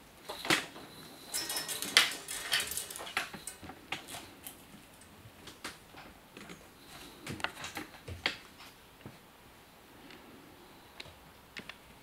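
A kitten's paws and claws tapping and scrabbling on a hard shelf and a plastic cat toy with a dangling wire lure: a quick flurry of clicks and knocks in the first three seconds, then scattered single taps.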